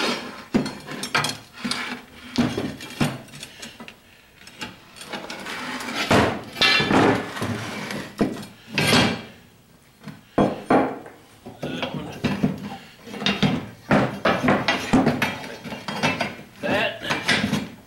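Rusty steel leaves of a 1962 Dodge D100 front leaf spring clanking and scraping against one another and on a wooden bench as they are handled and stacked, with many sharp knocks and a few longer metallic scrapes.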